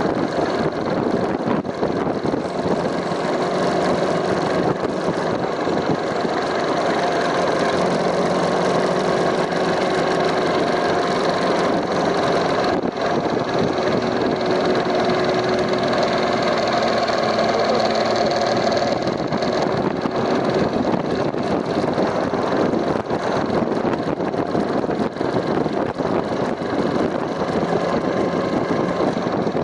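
2015 BMW R1200GS LC's liquid-cooled boxer twin running steadily, with the abnormal noise from its cylinder head that the owner is documenting, a noise that replacing the part first blamed has not cured.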